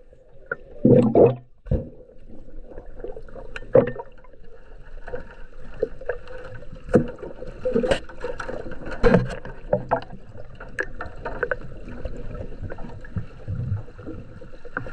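Sea water heard underwater: a steady water noise with many irregular sharp clicks and knocks, and a louder muffled rush of water and bubbles about a second in.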